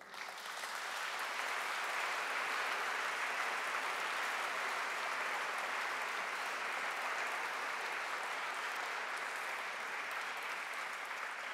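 A large seated audience applauding, a steady sustained clapping that swells in the first second and eases a little near the end.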